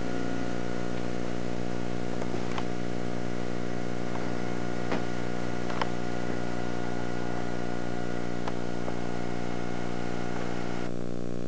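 Steady low hum made up of several held tones, with a few faint clicks. The higher hiss drops away near the end.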